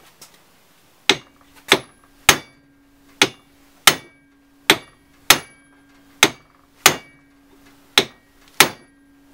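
A hammer striking a big chisel driven against the old tailshaft centre bearing, about a dozen sharp metallic blows roughly every half second to second, to knock the torn bearing off the shaft. A faint steady hum sits underneath.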